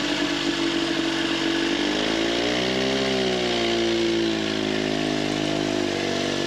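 Vintage Scott motorcycle's water-cooled two-stroke twin-cylinder engine running, revved up once and eased back about two to three seconds in, then running steadily as the bike moves off.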